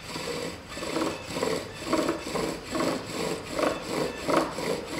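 Pine bow drill running: the pine spindle grinds in the notch of a pine hearth board as the bow is pushed and pulled, making a rhythmic rasping that swells with each stroke, about two to three strokes a second. It is the slow, heavy-pressure opening phase that builds up wood dust in the notch before the speed is raised.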